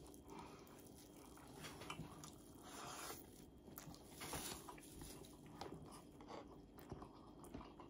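Faint chewing and mouth clicks as rice and fried salmon are eaten by hand, with a few small scattered clicks.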